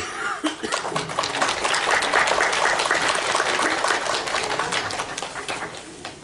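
Audience applauding, a dense patter of many hands clapping that thins and fades toward the end.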